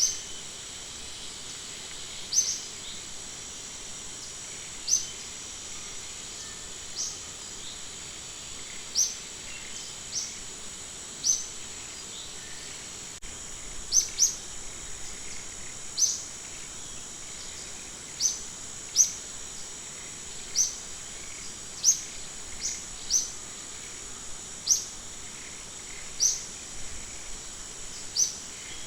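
Short, sharp high-pitched animal chirps repeating every one to two seconds, some in quick pairs, over a steady high insect drone.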